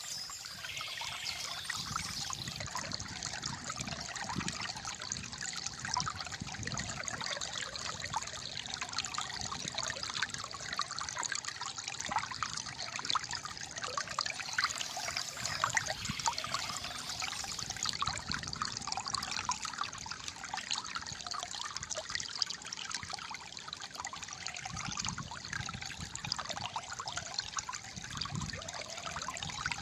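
Shallow flowing water trickling and gurgling steadily, a busy patter of small splashes.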